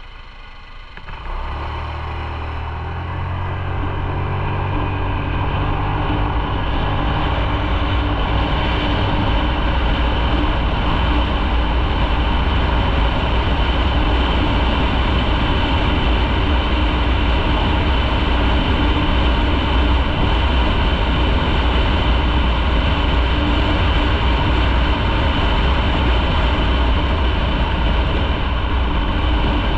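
Motorcycle engine pulling away about a second in and accelerating, growing louder for several seconds, then running steadily at speed under a constant rushing noise.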